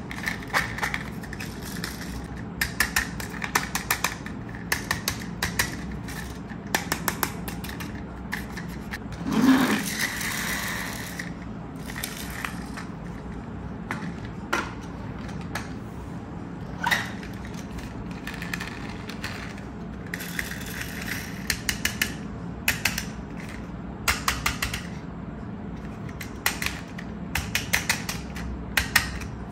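Small toy vehicles clicking and clattering as they are handled and set down on a wooden tabletop, with bursts of rapid clicking from their wheels and parts. One louder thump comes about ten seconds in.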